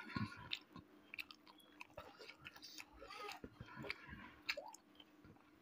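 Close-miked chewing of a mouthful of smoked pork and rice, with irregular wet mouth smacks, soft crunches and a few sharper clicks.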